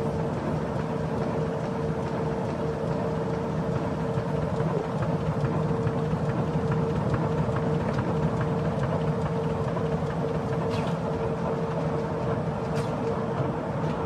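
Heidelberg Speedmaster SM 102 five-colour sheetfed offset press running: a steady mechanical din with a constant mid-pitched hum over it.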